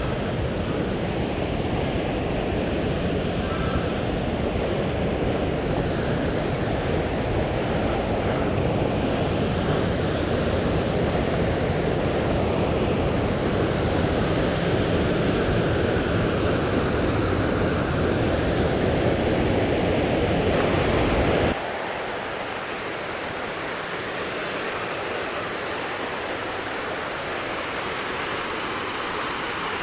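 Loud, steady rush of the river and falls water, full and deep, cutting abruptly about 21 seconds in to a quieter, thinner water hiss.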